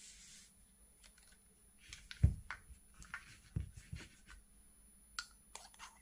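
Handling noises on a tabletop: a sharp knock about two seconds in, then softer knocks, and a few small light clicks near the end as the tail cap of an aluminium flashlight is unscrewed.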